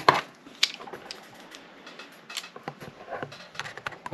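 Small clicks, taps and knocks of metal lock hardware and tools being handled on a workbench: a sharp knock just after the start, then scattered lighter clicks.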